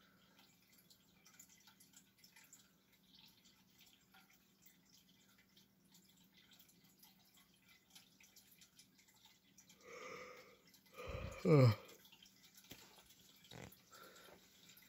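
Vintage Ritz 52-inch ceiling fan spinning down: a faint, steady low hum with scattered light ticks. About ten seconds in comes a brief louder sound, then a short one that falls sharply in pitch.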